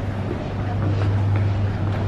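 Airport terminal ambience: a steady low hum under a faint, indistinct background wash.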